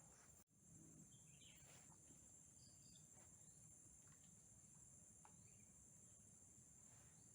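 Faint, steady chorus of crickets or similar insects, with a few faint bird chirps; the sound drops out for an instant about half a second in.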